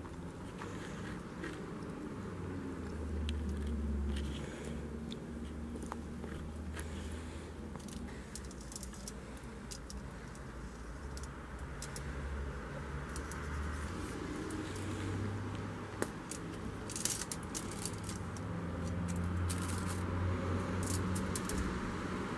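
Plastic icing bag crinkling and clicking as it is squeezed and handled, with small crackles from the foil underneath, over a low steady rumble.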